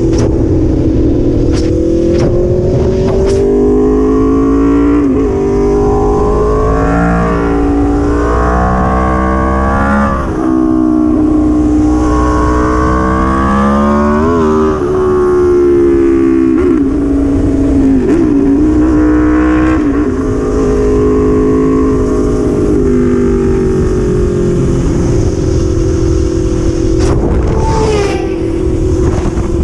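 Sport motorcycle engine pulling hard through the gears, its pitch climbing and dropping back at each shift several times, over a steady rush of wind on the microphone at speed.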